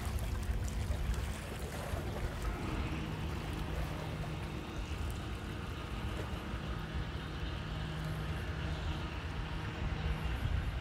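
A steady low motor drone over a constant outdoor noise haze.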